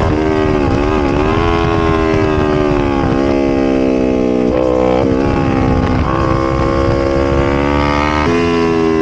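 Kawasaki Ninja 500 parallel-twin engine running hard under throttle. The pitch dips and climbs again about a second in, then jumps and glides several times as the gears change.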